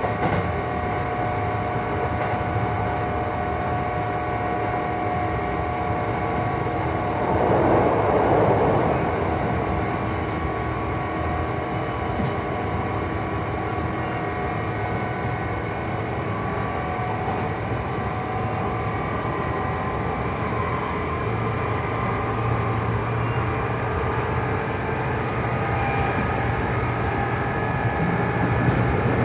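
Traction motor and gear drive of a Kintetsu 2800 series motor car (Mitsubishi MB-3110A DC motors, resistance control) heard from inside the car at running speed: a chord of several steady whining tones over wheel and rail noise, with the unusual drive-coupling noise that makes this car sound unlike other low-tone 2800s. A louder rush of noise comes about eight seconds in.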